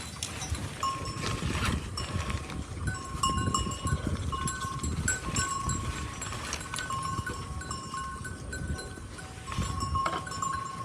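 Bells clinking irregularly: many short ringing tones at a few different pitches, over a low rumble.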